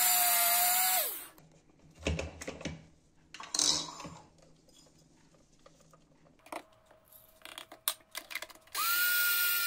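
Electric blade coffee grinder milling oat flakes into flour. Its motor whine winds down and stops about a second in, followed by clicks and rustling as it is opened, emptied and refilled. Near the end it starts again with a higher-pitched whine.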